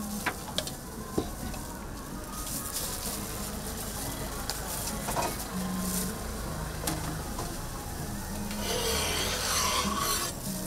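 Scraping and rubbing of a spatula on a hot crepe griddle, with a few light ticks and taps, and a louder, harsher stretch of scraping near the end.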